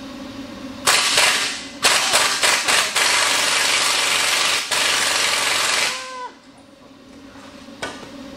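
Pneumatic impact wrench hammering on a rear shock mounting nut: a few short rattling bursts, then a steady run of about three seconds that stops near six seconds in with a brief squeak.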